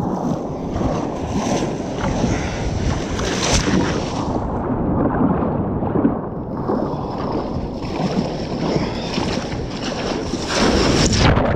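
Surf washing and wind rumbling on the microphone as a fishing ski is paddled out through breaking waves. Spells of hissing white water come and go, the loudest near the end.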